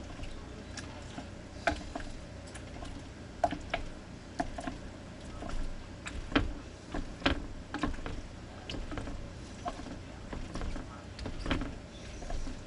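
Irregular light clicks and knocks of objects being handled, about one a second, over a steady low background noise.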